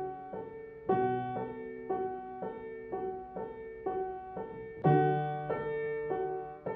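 Gentle solo piano music: notes and chords struck on an even pulse, with low bass notes about a second in and again near five seconds in.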